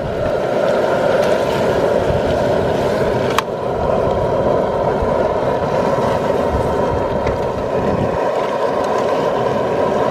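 Outdoor propane burner under a steel stockpot running with a steady flame roar. A metal ladle clicks once against the pot about three and a half seconds in.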